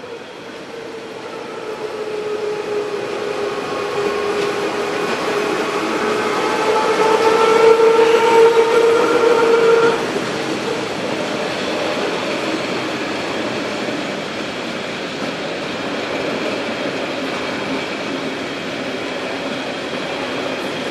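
Berner Oberland Railway narrow-gauge electric train running: a whine that grows louder and rises slightly in pitch, cutting off suddenly about halfway through, followed by the steady rolling of the coaches going past.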